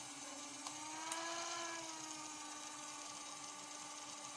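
CD Doctor disc repair machine running its repair cycle, its motor spinning the disc with a steady hum. The pitch rises a little about a second in and settles back, with two small clicks near the start.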